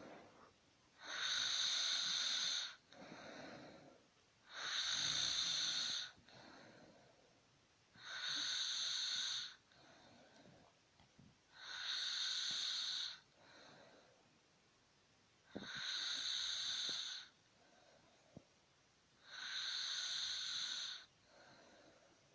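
A sleeper snoring in a slow, regular rhythm: six wheezy, whistling snores, each about a second and a half long and about four seconds apart, with softer breaths between them.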